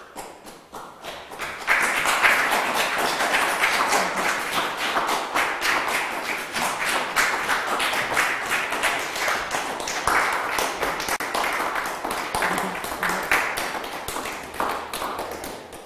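Audience applauding, a dense patter of many hands clapping that swells about two seconds in and tapers off near the end.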